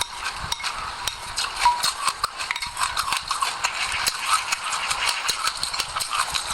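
Close-miked chewing of a mouthful of sesame seeds and passion fruit: dense, irregular crunchy crackles and small clicks.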